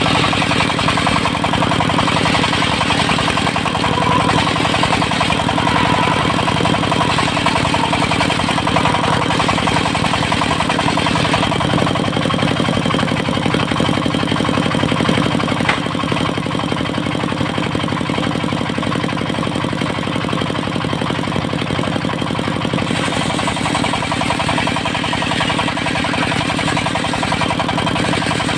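Diesel engine of a portable circular-saw sawmill running steadily, driving the saw blade. The level drops slightly about 16 seconds in.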